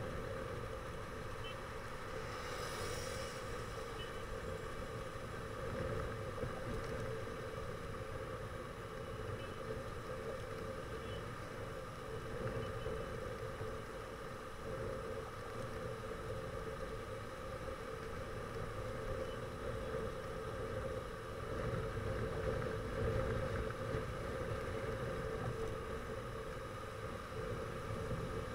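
Steady drone and road rumble of a moving vehicle in traffic, heard from on board, with a brief hiss about three seconds in.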